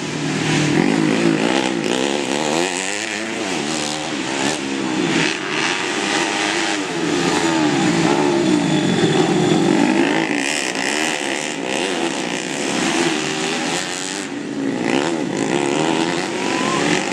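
Trail motorcycle engines revving, their pitch climbing and dropping over and over as the throttle is opened and closed.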